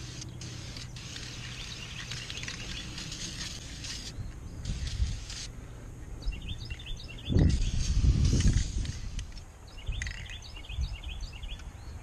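A small bird chirping in two short runs of quick repeated notes over outdoor background noise, with a loud low rumble midway through.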